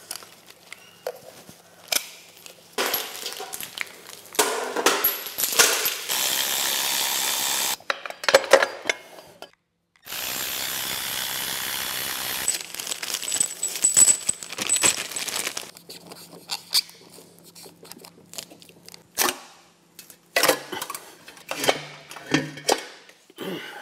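Cordless drill-driver spinning bolts out of a Holden 304 V8's intake and rocker cover in two runs of a few seconds each, with clinks and knocks of bolts and metal parts being handled and set down between them.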